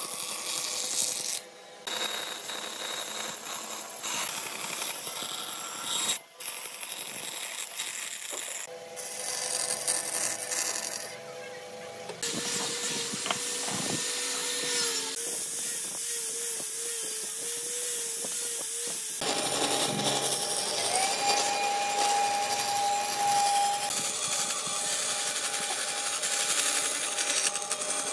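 A sequence of power-tool sounds on wood: a band saw cutting a wooden board, then an angle grinder with a sanding disc shaping a wooden disc, then the band saw cutting again. Each stretch carries a steady motor whine, and the sound changes abruptly several times.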